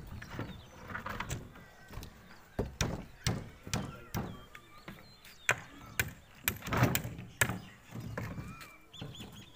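Irregular knocks and clatters of wooden shuttering planks and battens being handled and struck on a concrete roof, with several sharp knocks close together about two-thirds of the way through.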